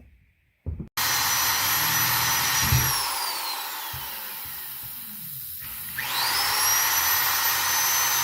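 Electric drill starting about a second in and boring into plastic. Its motor whine sinks in pitch as it bogs down under load, then climbs back to full speed near the end.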